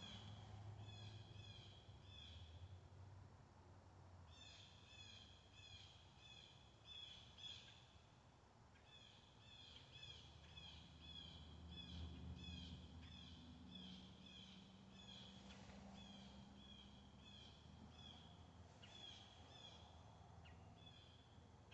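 Faint outdoor ambience with a small bird calling: bursts of short, high, downward-sliding chirps, several a second, repeated on and off, over a faint low hum.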